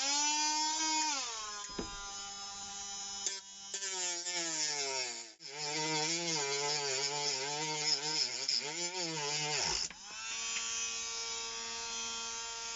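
Parkside cordless rotary tool with a thin cutting disc starting up with a high whine. The whine drops in pitch and wavers as the disc cuts into plastic under load. About ten seconds in, the sound breaks off briefly, then the motor runs on steady and unloaded, the thin cutting disc having snapped off.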